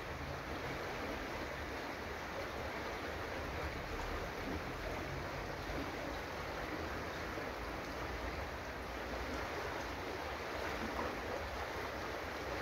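The Brandenberger Ache, a shallow alpine river, flowing over gravel and cobbles: a steady, even rushing of water.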